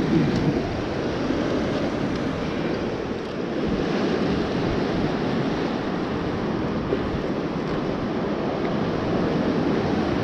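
Ocean surf washing over a rocky shore, a steady rushing, with wind buffeting the microphone.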